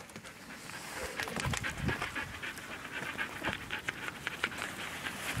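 A dog panting close by, in quick, even breaths several times a second.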